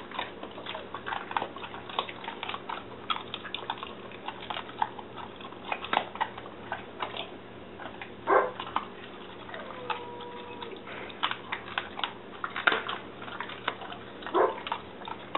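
Great Dane chewing raw bone-in pork ribs: a steady run of sharp cracks and wet clicks as the bones break. A short whine about ten seconds in.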